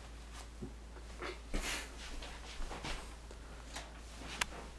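Soft rustling and a few light knocks as quilted oven mitts are pulled on and a hand takes hold of an electric oven's door handle, with a sharper click near the end.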